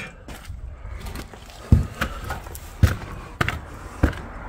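Footsteps on a gritty, rubble-strewn floor: three heavy steps about a second apart, with scraping clicks of grit and debris between them, over a low steady rumble.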